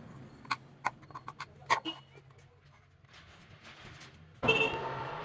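Several light, sharp clicks and knocks of small parts being handled during the first two seconds. About four and a half seconds in comes a sudden, louder scraping-like noise with a faint ringing tone in it. A faint low hum runs underneath throughout.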